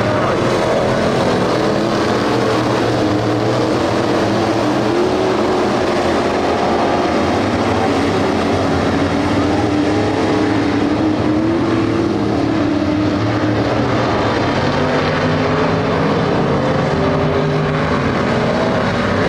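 A pack of street stock dirt-track race cars running at racing speed, their engines rising and falling in pitch as the cars go through the turns.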